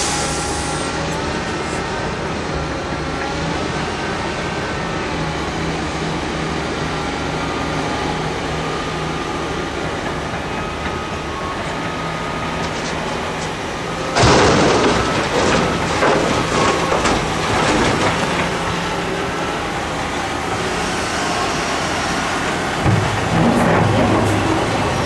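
Mercedes-Benz Actros dump truck's diesel engine running as the truck drives slowly on a dirt haul road. About halfway through, a sudden, louder rattling clatter starts and lasts several seconds, and the engine sounds close and strong near the end.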